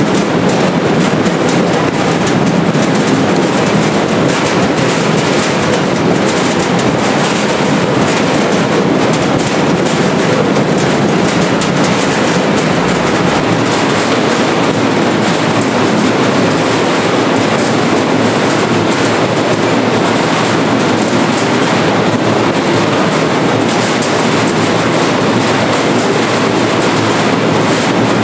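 Seed-potato sizer and cutter line running steadily: a dense, even rattle of sizer rolls, conveyor chains and potatoes tumbling through the machine.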